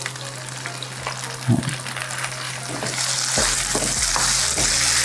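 Seasoned ground beef sizzling in a frying pan, stirred and scraped with a wooden spatula as tomato sauce goes in. The sizzle grows louder about three seconds in.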